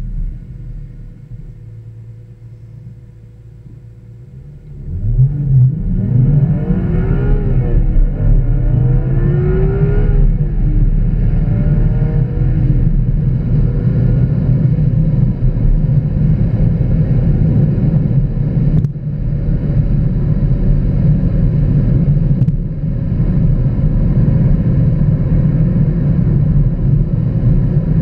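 Car engine heard from inside the cabin: a low, quiet running at first, then about five seconds in it pulls away hard, the revs climbing and dropping back with each upshift, before settling into a steady cruise with road noise.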